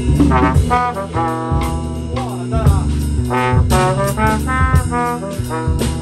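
Jazz band playing: a brass instrument plays a fast, running solo line over electric bass guitar and drums.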